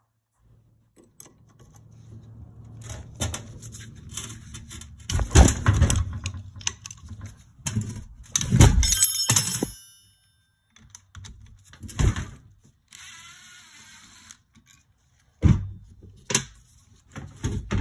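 Metal parts knocking and clunking as a Yamaha YZ250F four-stroke engine's cylinder head is worked loose and lifted off by hand. A sleeve rubs close by in the first half. The loudest knocks come around a third and halfway in, one of them with a short metallic ring, and there is a brief scrape later on.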